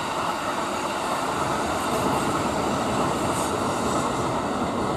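Kintetsu 80000 series Hinotori limited express electric train passing: a steady running noise of its wheels on the track.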